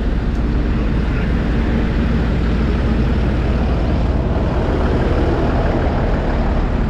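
Busy city street traffic: a steady low rumble of vehicle engines, swelling slightly a few seconds in.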